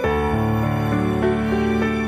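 Background music: a slow instrumental with held notes.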